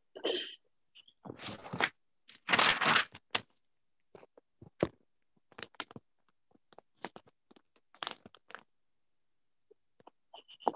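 Rustling, crackling noise in a few short bursts, the loudest about two and a half seconds in, followed by scattered light clicks.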